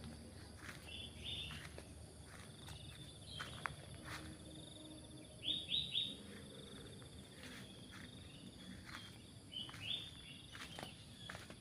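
Quiet countryside ambience: a bird gives short high chirps, three in quick succession around the middle, over a thin, steady, high insect trill, with faint scattered clicks.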